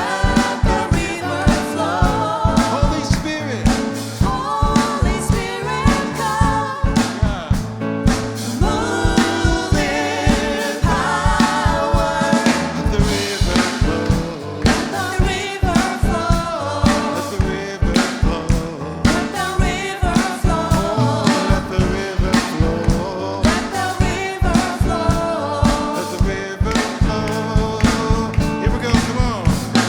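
Gospel worship song played by a live band: singing over drum kit and bass with a steady beat.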